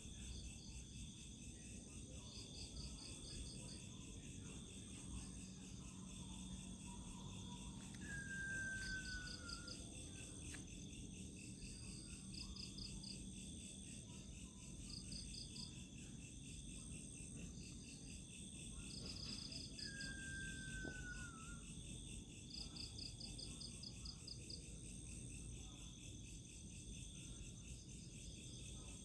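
Night insect chorus: crickets trilling steadily at several pitches, with repeated short runs of fast chirps. A short falling whistle sounds twice, once about a third of the way in and again about two thirds in.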